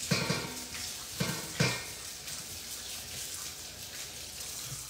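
Tap water running over raw peeled shrimp in a metal colander as they are rinsed, a steady splashing hiss with a few sharp knocks in the first two seconds. The water cuts off near the end.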